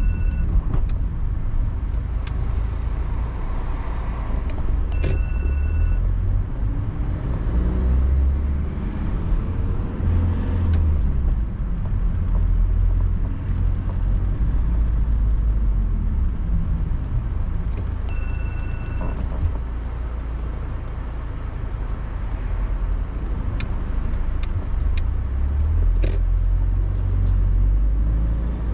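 A car's engine and tyres heard from inside the cabin while driving: a steady low rumble, with a few short beeps near the start, around five seconds in and around eighteen seconds in.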